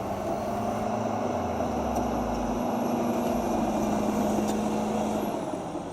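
Heavy machine's engine running steadily, with a deep rumble underneath that drops away about two and a half seconds in.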